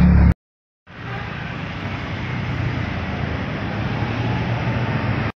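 Street traffic noise: an even rushing sound with a low rumble, slowly growing louder. It breaks off into total silence for half a second near the start.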